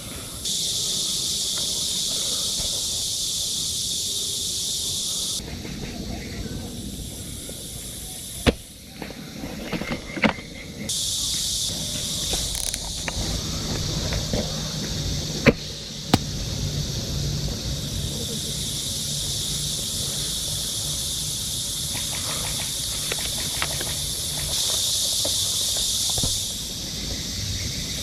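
A loud, high-pitched insect chorus buzzing steadily. It stops and starts abruptly several times. A few sharp clicks come in the middle, and a faint low hum runs underneath for a while.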